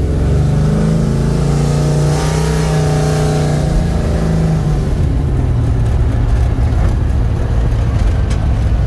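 400 cubic-inch small-block V8 with dual four-barrel carburettors and long-tube headers into a straight exhaust, pulling the car along at a steady high note for about four seconds; its note then drops and settles to a lower, even run.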